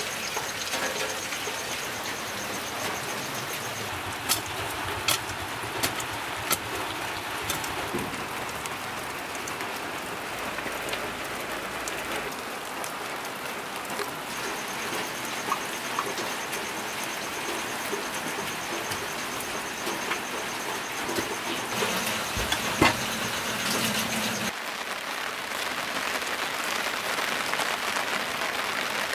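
Steady rain falling on leaves and ground, with a few sharp taps of heavier drops scattered through it.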